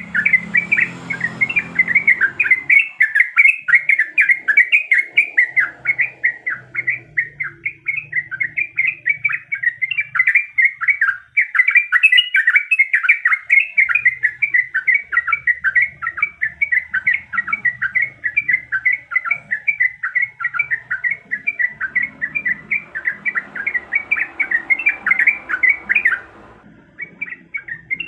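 Yellow-vented bulbul (trucukan) singing continuously in a rapid run of chirping notes. The song breaks off briefly near the end and then resumes.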